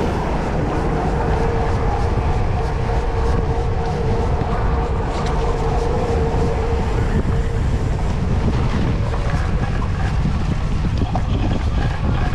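Wind buffeting the microphone of a camera on a moving cyclocross bike, mixed with the tyres rolling over wet pavement and small rattles of the bike. A steady hum runs through the first half or so.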